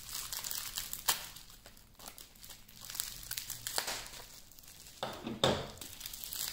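Bubble wrap being pulled and crumpled off a packaged product, the plastic crinkling and crackling in uneven bursts. There is a sharp crack about a second in and a louder burst of crinkling around five seconds in.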